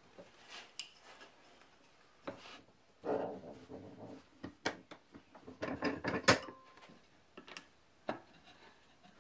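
A ball bearing being pressed into a plywood bearing block in a bench vise: scattered creaks, rubs and knocks of wood and metal, with one sharper click and a brief ring about six seconds in.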